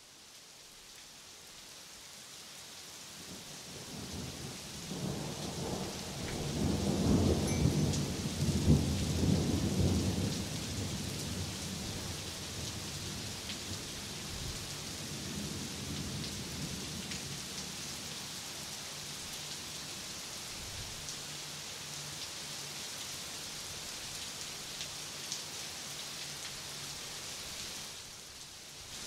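Steady rain with a long roll of thunder. The rain fades in, the rumble swells to its loudest about eight seconds in and dies away, and the rain then keeps falling steadily.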